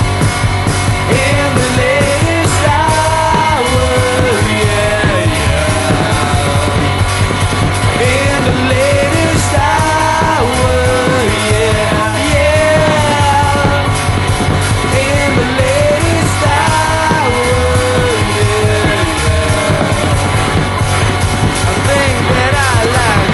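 Rock band song playing: drums and bass under a melodic lead line that bends and slides in pitch.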